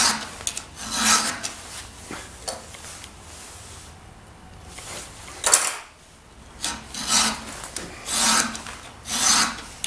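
A round chainsaw file in a Husqvarna filing guide rasping across a saw-chain cutter tooth to sharpen it. The strokes come about one a second, with a pause of a couple of seconds near the middle.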